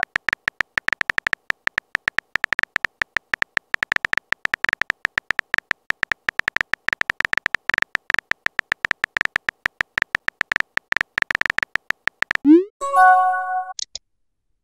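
Rapid, irregular tapping clicks of a phone's on-screen keyboard typing sound effect. Near the end they stop, and a short rising swoop and a bright chime mark a chat message being sent.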